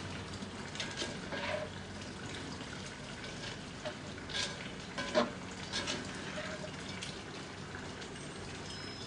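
Liquid egg mix being stirred in a bowl: soft sloshing with a few light clinks of the utensil against the bowl, the loudest a little past halfway.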